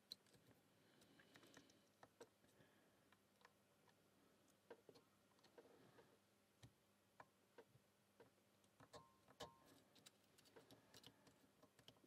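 Faint, irregular small metallic clicks and ticks of a lock pick working the rotating wafers inside a Fichet Bauche M2 safe lock under a tension tool.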